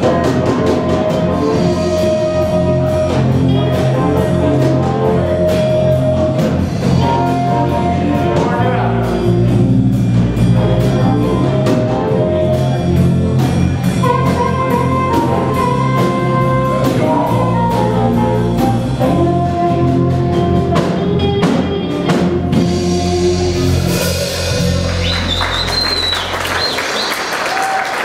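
Live blues band (amplified harmonica, electric guitar, keyboard and drum kit) playing a steady groove and bringing the song to its close. Applause and cheering rise near the end as the music stops.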